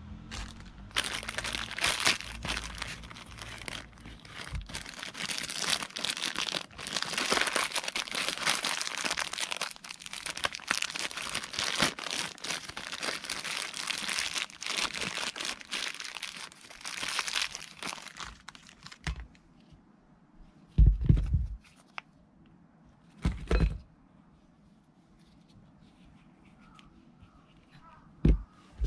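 Dense crinkling and scraping, full of small clicks, for about eighteen seconds, then three short dull thumps with quiet between them.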